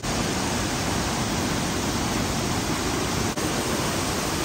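Fast-flowing stream rushing over rocks and a small cascade in a stone channel: a steady, even rush of water, with one brief dip a little past three seconds in.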